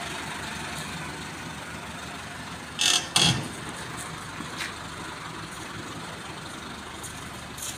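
Tractor diesel engine running at low revs as it pulls a mounted disc harrow through a gateway, with two sharp clanks close together about three seconds in.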